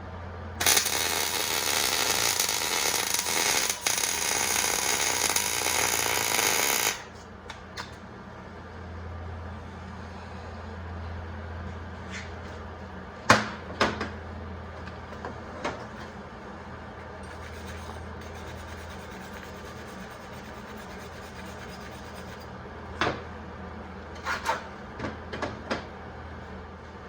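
Miller 140 MIG welder laying a weld bead for about six seconds, a steady loud hiss that stops abruptly. A few sharp metal clinks and taps follow, over a low hum.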